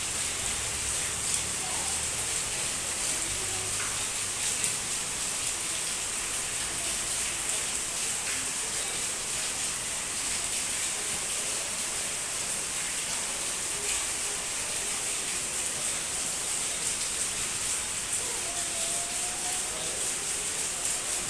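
Steady rain falling, an even hiss of drops that holds constant throughout.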